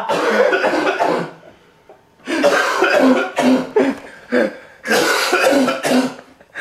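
A man coughing hard in three bouts of repeated coughs, bent over after being hit with a Frosty frozen dessert.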